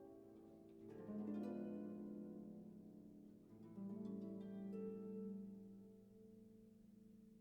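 Soft background music: plucked-string notes over held low tones, with new chords struck about a second in and again near four seconds, each fading slowly.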